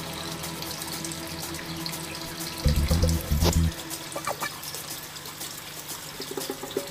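Steady trickle of water running into a shallow crayfish tank through its pump tubing, with a short low pulsing burst about three seconds in.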